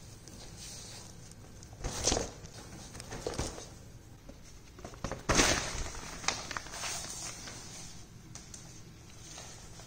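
Devon Rex kitten's paws scampering and scrabbling on a wooden floor as it dashes and pounces. The sound comes in a few short rushes, the loudest about five seconds in.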